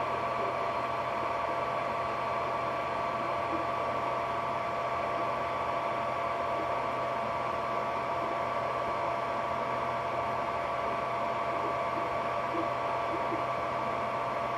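Ender 3D printer running: a steady whirring hum with two constant high whining tones.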